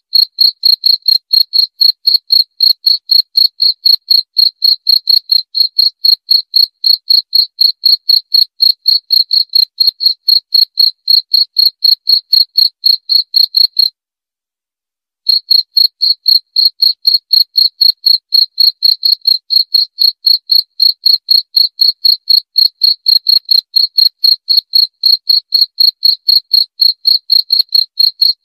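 Cricket chirping in a steady, even rhythm of about three high chirps a second. It cuts out completely for about a second midway, then carries on.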